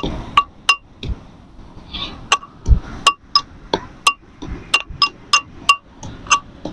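Metal pestle pounding ginger in a small metal mortar: a run of sharp, irregular strikes, about two or three a second, each with a brief metallic ring.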